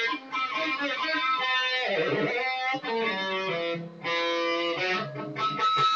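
Electric guitar played to make sound effects: sustained notes with a dip in pitch about two seconds in, short breaks near three and four seconds, and a long high held note near the end that slides down.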